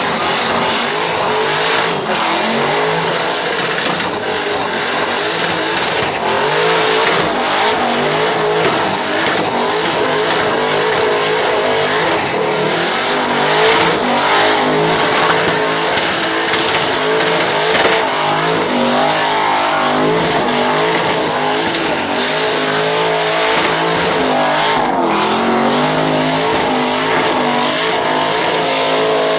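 Twin-turbo V8 of a Holden ute held at high revs in a sustained burnout, the engine note rising and falling over the continuous hiss and squeal of the spinning rear tyres.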